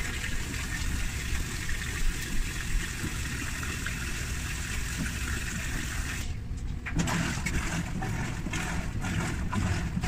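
Kenmore top-load washing machine filling its tub with water during a clean-washer cycle: a steady rush of running water. About six seconds in it drops out briefly, then gives way to a different steady noise with light clicks.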